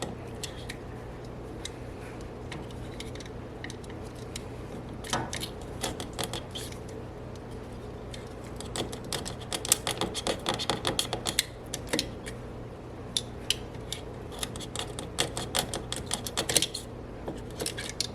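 A knife blade cutting and shaving splintered wood away from around a hole in the floor, in bursts of quick scraping clicks that are busiest about halfway through and again toward the end.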